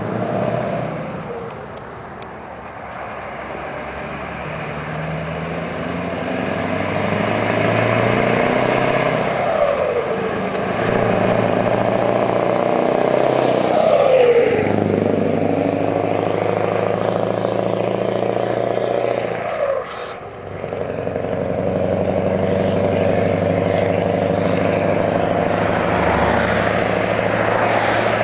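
Scania 144 530 truck's V8 diesel building up as it approaches, its pitch falling as it passes about halfway through, then pulling on under load with a brief break about two-thirds in.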